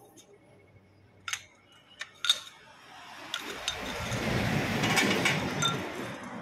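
Three sharp metal clinks at the lathe, then a rushing noise that swells for a couple of seconds and fades again.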